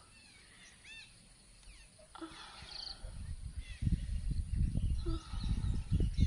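Birds chirping in short calls. From about halfway a loud, irregular low rumble of wind buffeting the microphone takes over, with a woman's faint pained moans.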